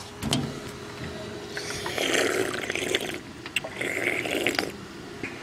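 Water from a drinking fountain running in two spurts of about a second each, with a few clicks of the handheld device being handled near the start.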